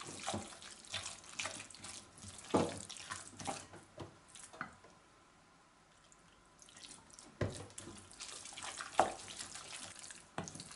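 Wooden spoon stirring and pressing a thick, wet paste of shredded chicken, bread and ground walnuts in a glass bowl: wet squelching with scrapes and knocks against the glass. The stirring stops for a couple of seconds about halfway through, then starts again.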